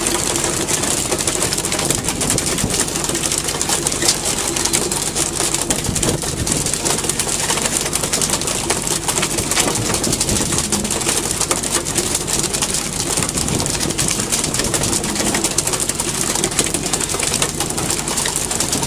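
Steady noise of a fishing boat under way at sea, with engine, wind and water mixed, and many short knocks and slaps throughout.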